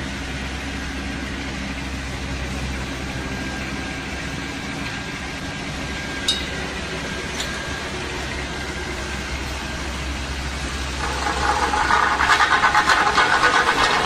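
Wheeled asphalt paver's diesel engine running steadily, with a sharp click about six seconds in. About eleven seconds in a louder, rapidly pulsing rattle joins the engine as the machine works.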